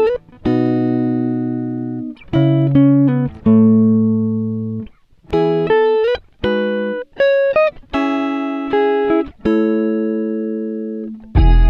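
Background music: a plucked-string melody of separate notes and short phrases, each note dying away, some sliding in pitch; a fuller passage with a deep bass comes in near the end.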